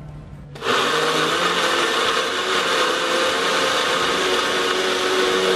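Signora nutri blender (a personal blender with an upturned cup on a motor base) switching on about half a second in and running steadily, grinding red chillies, garlic, shallots and shrimp paste with a little water into a wet paste.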